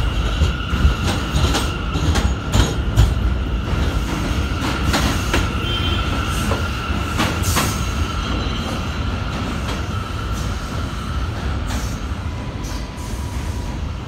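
An R179 subway train pulling away on elevated track, its steel wheels rumbling and clacking over rail joints with a steady high squeal. The sound grows fainter toward the end as the train recedes.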